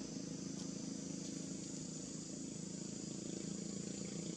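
Steady outdoor ambience: a constant high-pitched insect drone over a low steady rumble, with no distinct calls or knocks.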